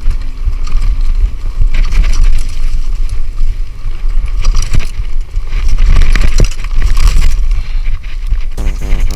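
Mountain bike riding a dirt trail, heard from a chest-mounted action camera: heavy low rumble of wind on the microphone and tyres on the trail, with the bike rattling and knocking over bumps. Near the end a steady buzzing tone with evenly spaced overtones sets in.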